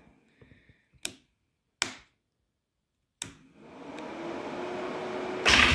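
Two light clicks from the ATV's handlebar start/run/off switch. Then a faint electric-motor whine rises in pitch and grows louder, likely the cooling fan spinning up. Near the end the Polaris Sportsman 400's single-cylinder engine fires up at once, unintentionally, as the switch is worked.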